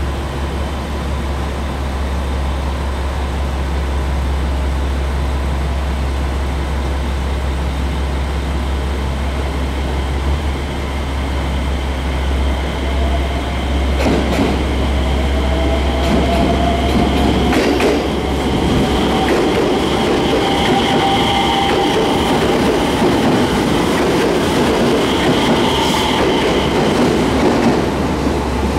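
JR West 227 series electric train pulling out of a station: a steady low hum, then about halfway through its traction motors start a whine that climbs slowly in pitch as the train gathers speed, with clacks of the wheels over rail joints.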